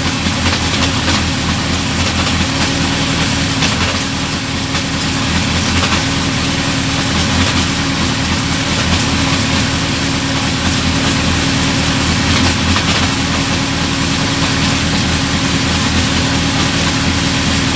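Honda CBR1000RR Fireblade's inline-four engine running steadily at idle, with the gearbox in sixth gear.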